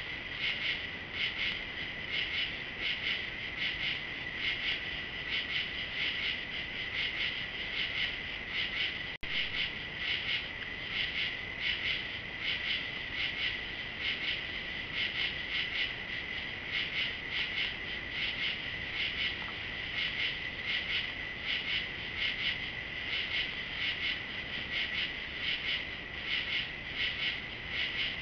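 Night insect chorus of crickets: a steady high trill with a fast rhythmic pulsing chorus over it, unbroken except for a momentary drop-out about nine seconds in.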